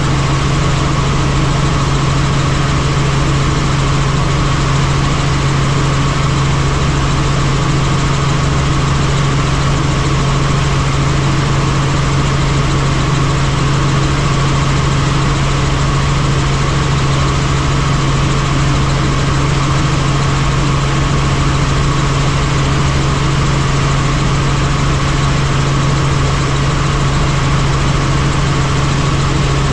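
Helicopter in flight: a loud, steady drone of engine and rotors, with a constant low hum and a fainter steady whine above it.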